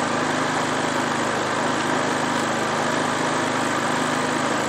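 Generac IQ3500 inverter generator running steadily, freshly started, with no load connected and economy mode off, so the engine holds full speed rather than throttling down.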